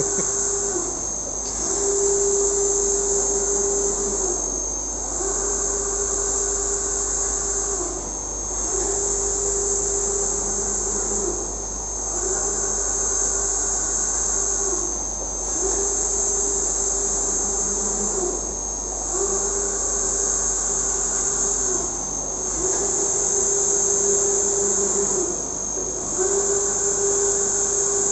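UV flatbed inkjet printer's print-head carriage sweeping back and forth over the bed, a steady mechanical whine with a high hiss. It runs in regular passes of about three seconds, each followed by a brief dip as the carriage turns around, about eight passes in all.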